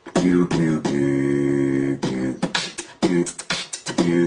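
Beatboxing: a person making drum sounds with the mouth in a fast rhythm, short pitched bass hits alternating with sharp hi-hat-like clicks. About a second in, a steady hummed note is held for about a second.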